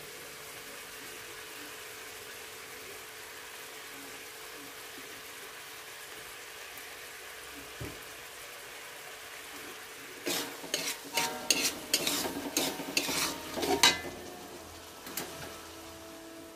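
Spice paste frying gently in an aluminium wok, a steady low sizzle. About ten seconds in, a metal spatula stirs and scrapes against the wok in a quick run of strokes for about four seconds, with one more scrape a second later.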